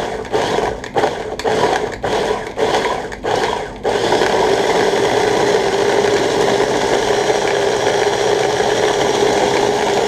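Prolex electric mini food chopper blending onions, garlic and coriander: pulsed in short bursts about twice a second, then, about four seconds in, run continuously with a steady whirr.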